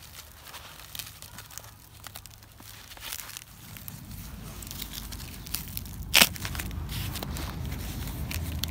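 Plastic and foam packaging wrap crinkling and tearing as it is handled and cut open with a knife, with scattered crackles. A low rumble comes in about three and a half seconds in, and a single sharp crack sounds about six seconds in.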